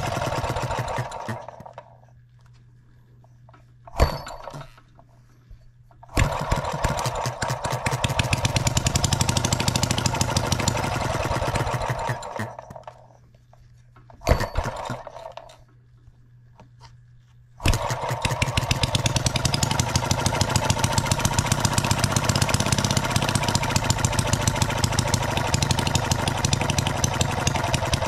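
Enjomor 6cc hit-and-miss model engine running with a rapid, even firing beat, firing every stroke instead of hitting and missing, on a mixture still a little lean. It cuts out twice, with a single sharp knock and a brief sputter in the quiet gaps, and catches again each time, running steadily from near the end onward.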